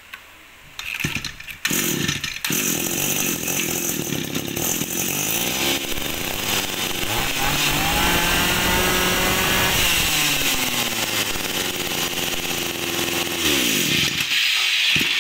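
Small 23cc two-stroke brush cutter engine pull-started, catching after a couple of pulls, then running and revving up and back down. Because it had lost its fuel prime, it is started from scratch: primer bulb pumped and choke closed, then opened once it runs.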